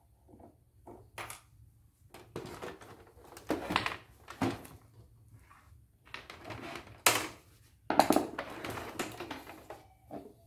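Handling of an embroidery machine's plastic housing during screwdriver work: irregular clicking, rattling and scraping of plastic and metal on a wooden bench, with two sharp knocks about seven and eight seconds in.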